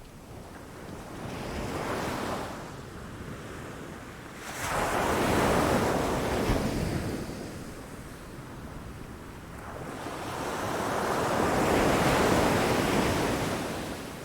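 Sea waves crashing against rocks and washing back: a small wave about two seconds in, a larger one breaking suddenly just past a third of the way through, and another building up and breaking near the end.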